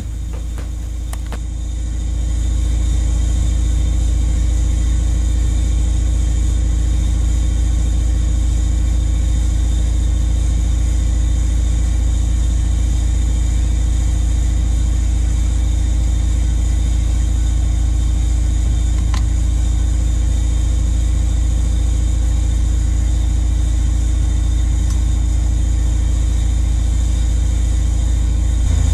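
Steady low drone of a running machine with a constant hum, unchanging throughout; one faint click about two-thirds of the way through.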